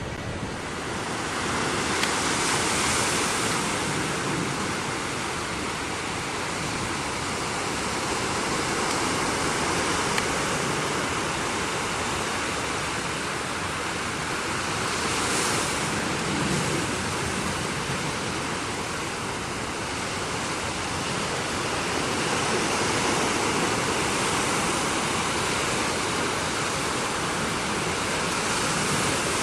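Ocean surf breaking and washing on the shore, a steady rushing that swells and eases every several seconds.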